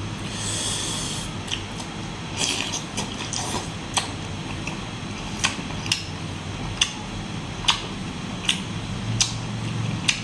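Close-miked chewing of squid salad: a brief rustle near the start, then a run of short sharp mouth clicks and smacks about once a second.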